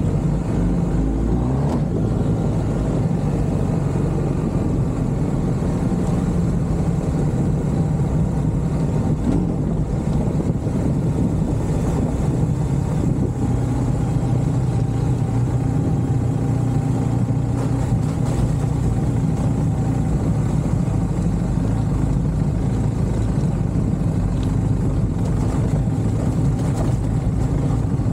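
A motor vehicle's engine running steadily, with an even low hum and road or wind noise throughout.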